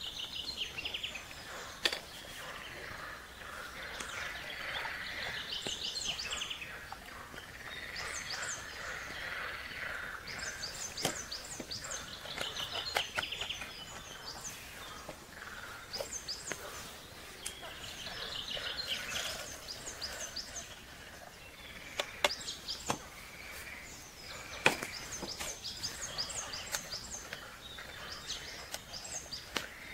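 Forest birdsong: several birds singing repeated short trills and chirping phrases over a soft outdoor hush. A few sharp clicks and taps of camp cookware being handled are scattered through it.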